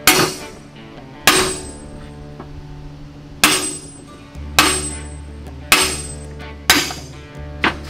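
Hammer blows on steel, about seven sharp ringing strikes roughly a second apart, knocking a helical gear out of a differential housing. Background music plays underneath.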